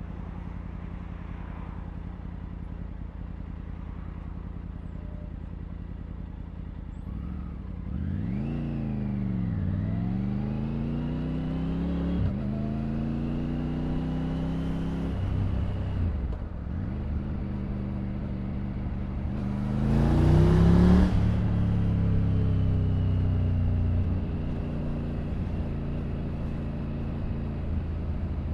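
Triumph Tiger 900's three-cylinder engine running steadily, then pulling away about seven seconds in, its pitch rising and dropping back several times as it goes up through the gears. About twenty seconds in a loud rushing noise peaks for a second or two, then the engine note falls and settles as the bike slows.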